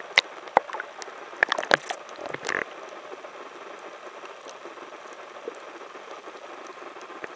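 Seawater splashing and sloshing against the camera at the surface, with sharp splashes over the first two or three seconds, then a steady underwater hiss with faint scattered ticks once it is submerged.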